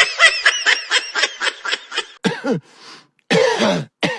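Rapid high-pitched laughter, about seven short bursts a second, for the first two seconds. It is followed by a falling-pitch grunt and a harsh cough about three seconds in.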